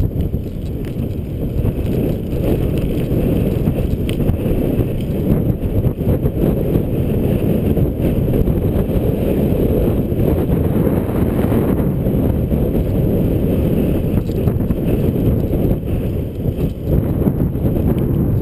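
Steady rush of wind over a GoPro's microphone as a Brompton folding bike coasts fast down a long highway grade, a dense low rumble that swells and dips a little.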